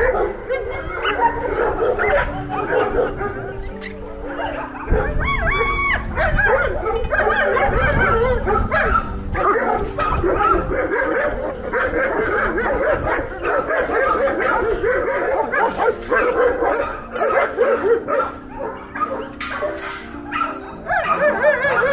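Many dogs barking, yipping and whining over one another in a continuous chorus.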